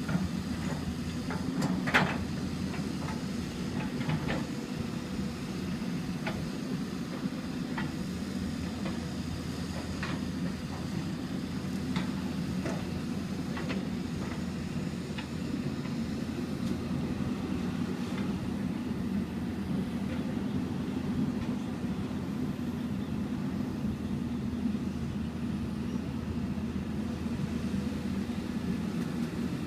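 Hyundai 200 LC9 excavator's diesel engine running steadily, with scattered sharp knocks, the loudest about two seconds in.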